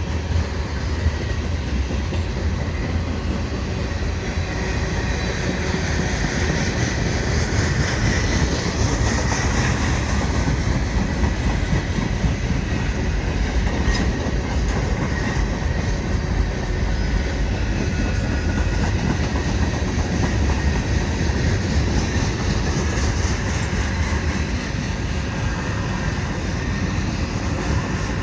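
Freight cars of a long CN mixed freight train rolling past at speed: a steady rumble of steel wheels on the rails with a rapid clickety-clack over the rail joints.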